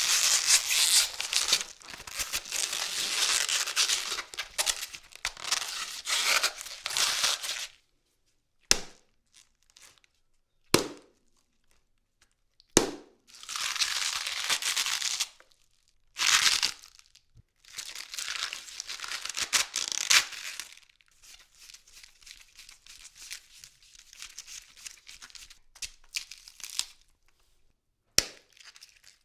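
A head of cabbage being torn apart and crushed, its leaves crunching, tearing and squeaking. A long burst of tearing comes first, then separate sharp snaps and shorter tearing bursts, with quieter crackling near the end.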